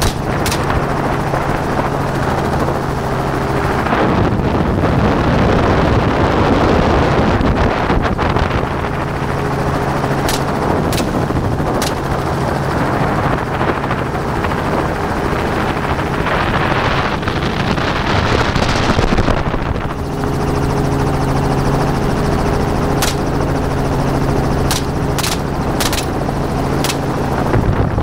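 Helicopter engine and rotor drone, steady, with wind rushing over the microphone through the middle stretch. Gunshots crack out now and then: one at the start, two near the middle, and several in quick succession near the end.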